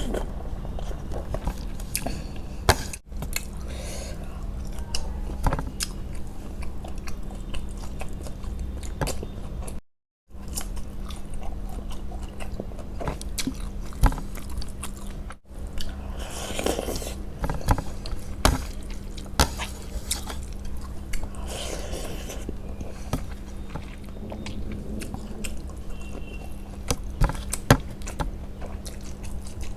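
Close-miked eating sounds of a person chewing a rice and curry meal: wet chewing and mouth noises with many small clicks and smacks. A steady low hum runs underneath, and the sound cuts out briefly a few times.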